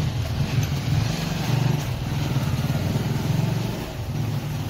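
Motorcycle engine running with a low, pulsing beat.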